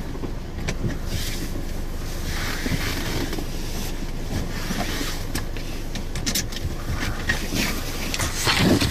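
A steady low rumble and hiss in a car cabin at night, with scattered small clicks and rustles and a louder rustle near the end.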